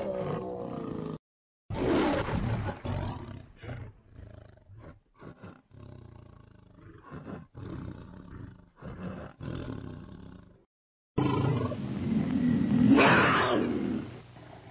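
Tiger growling and roaring in a string of separate calls, broken twice by a moment of dead silence; the loudest roar comes near the end.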